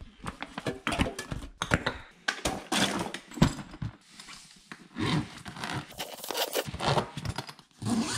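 Ice and water being put into a container: irregular crunching, scraping and crinkling handling noises with scattered clicks and clatter.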